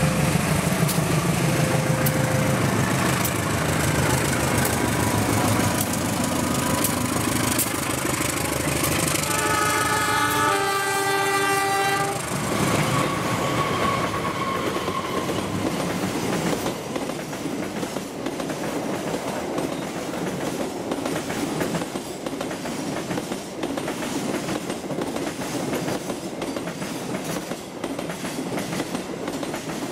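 Diesel locomotive hauling a passenger train, its engine droning. About ten seconds in it sounds a multi-note horn for some three seconds. The coaches then pass close by, rumbling with repeated clicks of the wheels over the rails.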